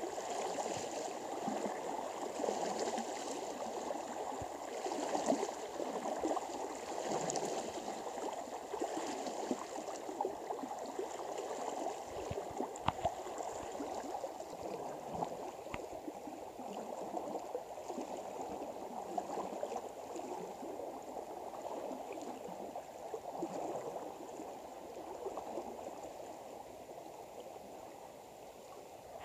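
River water sloshing and gurgling around legs wading waist-deep across a slow river, a steady churning wash that eases a little near the end.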